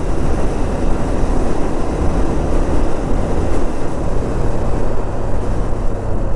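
Motorcycle riding in traffic: steady wind noise over the microphone with the engine running underneath, and a steady low engine hum coming through more clearly a little past the middle.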